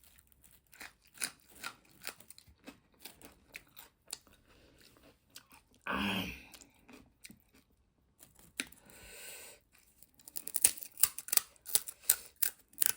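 Close-up crunching and chewing of pani puri: crisp, hollow fried shells cracking between the teeth in sharp crackles. A short louder sound comes about six seconds in, and the crunching grows dense and loud near the end.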